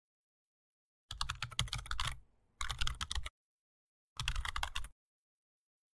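Computer keyboard typing in three quick bursts of rapid keystrokes, the first about a second long and the other two shorter, with silence between them.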